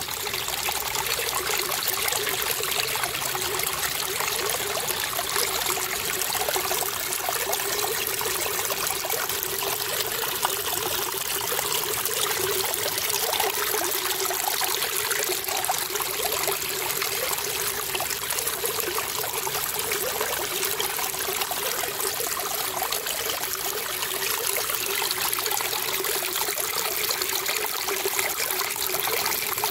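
Small stream of water running and splashing over rocks in a little cascade, a steady trickling rush.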